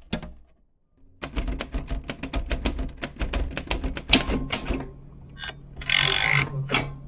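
Royal manual typewriter being typed on: a fast run of sharp key clacks for about three and a half seconds, then a few single strikes, and a longer rattle near the end.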